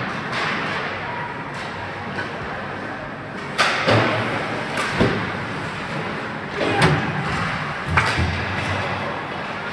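Ice hockey play: about six sharp bangs and thuds of puck, sticks and players against the rink boards and glass, most of them in the second half, over steady rink noise.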